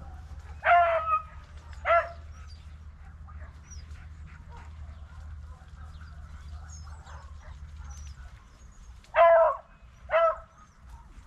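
Hunting beagle barking in two pairs of short, pitched barks, one pair about a second in and the other near the end, over a steady low rumble.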